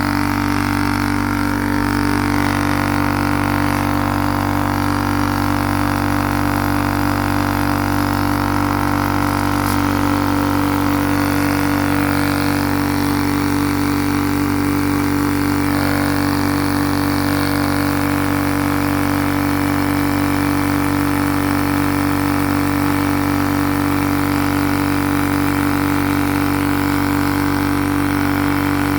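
TUXING TXED012 high-pressure air compressor running with a steady, loud droning hum. The owner says it cannot build pressure and only a small breeze of air comes out, which he puts down to a missing rubber seal.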